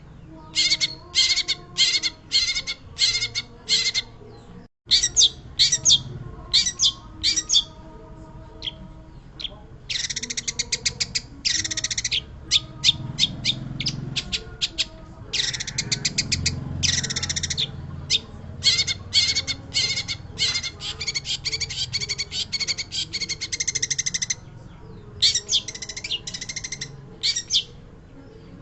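Long-tailed shrike singing in full voice: phrases of rapid, harsh chattering notes, each phrase a second or two long with short pauses between. The sound cuts out for an instant about five seconds in.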